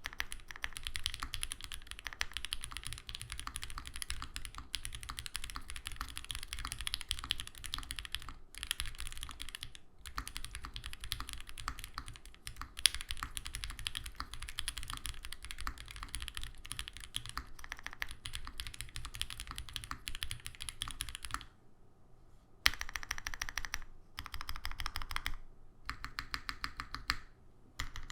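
Owlab Mr. Suit mechanical keyboard with a POM plate, lubed 43 Studio OPBlack linear switches and GMK keycaps, typed on steadily and fast. About twenty seconds in the typing stops briefly, then gives way to short runs of evenly spaced presses of the modifier keys.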